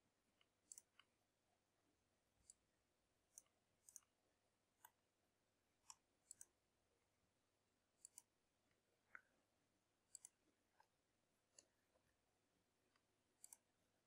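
Faint computer mouse clicks, irregular and about one a second, several in quick pairs, over near silence.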